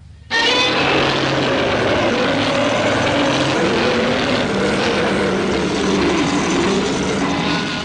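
Film sound effect of an aircraft engine or rotor running steadily: a dense, loud noise with a low steady hum and a slowly wavering tone. It cuts in suddenly just after the start and falls away at the very end.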